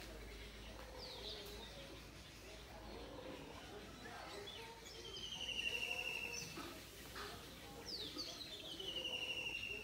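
Ducklings calling: a few short falling peeps and longer high trilled calls, each about a second long, one near the middle and one near the end.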